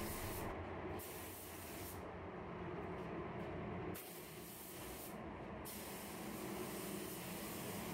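Gravity-feed paint spray gun hissing steadily as it lays single-stage yellow paint onto a car body. The high part of the hiss cuts out briefly a few times.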